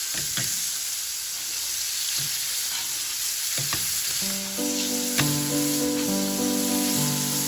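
Food sizzling steadily in a hot frying pan, with a few light knocks of a utensil against the pan. Soft background music comes in about four seconds in.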